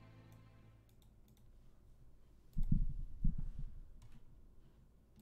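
Scattered light clicks of a computer mouse. About halfway through comes a cluster of louder low thumps.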